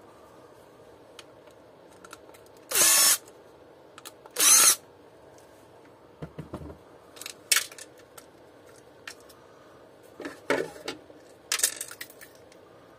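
A small cordless impact driver runs twice in short half-second bursts, about a second and a half apart, backing out screws from a vacuum cleaner's plastic housing. Light clicks and knocks of plastic parts being handled follow.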